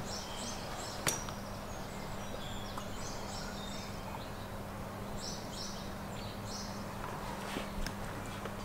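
Quiet outdoor ambience: a steady low hum with faint high chirps scattered through it and a single sharp click about a second in.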